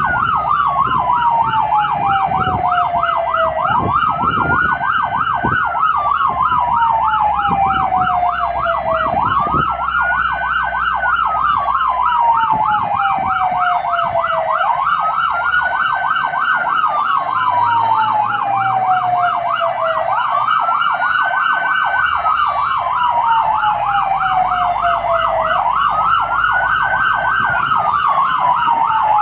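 Fire engine's electronic siren heard from inside the cab, sounding a wail and a fast yelp together. The wail rises quickly and falls slowly, about every five and a half seconds, while the yelp warbles rapidly. The engine runs underneath, with a few low knocks in the first several seconds.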